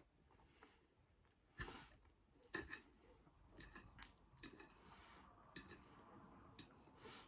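Faint clinks and scrapes of a knife and fork against a plate while cutting battered fish, with two louder clinks about one and a half and two and a half seconds in.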